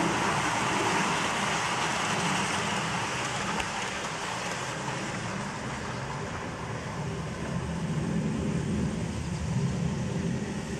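Garden-scale model freight train rolling along its track with a steady rattle of wheels on rail. It is loudest as it passes close at first, fades as it moves off, then grows again near the end.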